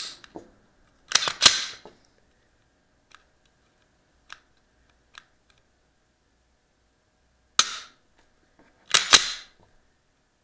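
The action of an unloaded Glock 19 Gen 4 9mm pistol being worked by hand, with the slide racked and the striker trigger dry-fired and let out to its reset. Sharp metallic clacks come in a cluster about a second in and again around eight to nine seconds, with three faint single clicks between.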